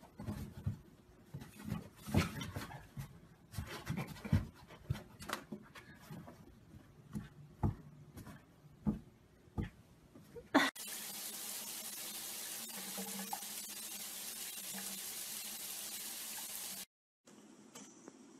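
A cat's paws knocking and scratching on a cardboard box as it bats at a toy poking through a hole, irregular taps and scrapes with a few sharper thumps. About eleven seconds in this gives way to a steady hiss that cuts off suddenly near the end.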